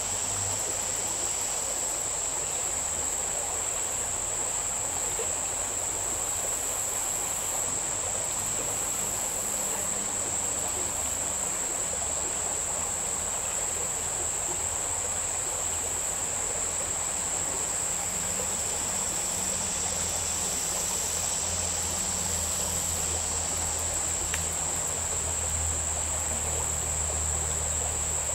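Insects calling in one unbroken high-pitched drone over the steady rush of a small mountain stream.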